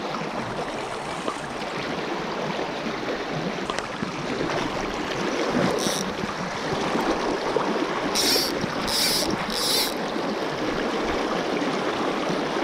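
Shallow trout stream running steadily over a gravel riffle, a continuous rushing and burbling of water. A few brief high swishes sit over it about two-thirds of the way through.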